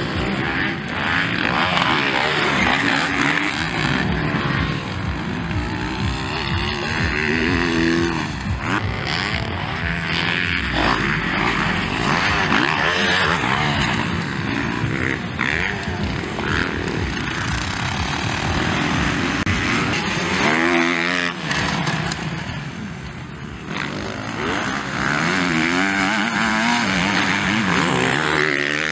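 Motocross dirt bike engines racing on the track, revving up and down repeatedly as the bikes accelerate, shift and pass, with a brief drop in loudness a little past two-thirds of the way through.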